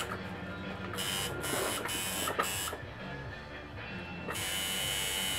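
Tattoo machine buzzing on the skin in short starts and stops, pausing briefly, then running steadily from a little past four seconds in. Faint background music underneath.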